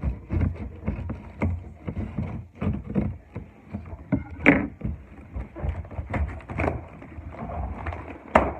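Cardboard parcel being opened by hand: irregular scraping, rustling and knocking of cardboard and packing, with sharper knocks about four and a half seconds in and near the end.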